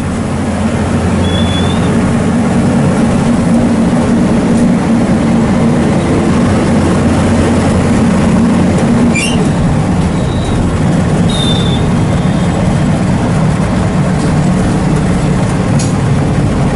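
Bus engine running steadily while under way, heard from inside the cab as a loud low drone, with a few brief high squeaks about a second in and again around nine and eleven seconds.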